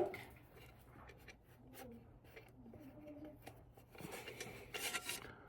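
Faint handling noises: light rubbing and small clicks as parts are pressed and handled, with a short scratchy rub about five seconds in.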